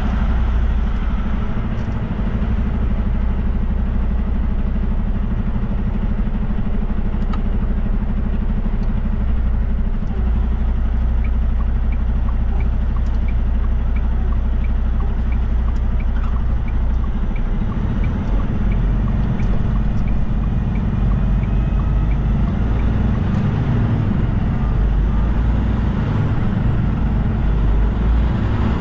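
Semi truck's diesel engine running steadily as it pulls away and drives, heard from inside the cab. A turn signal clicks at an even pace through the middle, while the truck turns onto the road.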